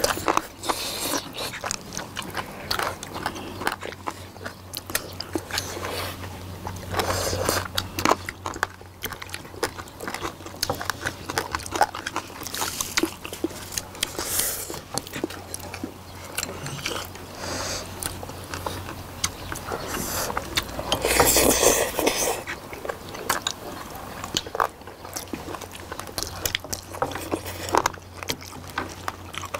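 Close-miked eating sounds from several people: biting and chewing braised mideodeok (sea squirts), noodles and rice, with many short clicks of chopsticks against dishes and now and then a louder slurp.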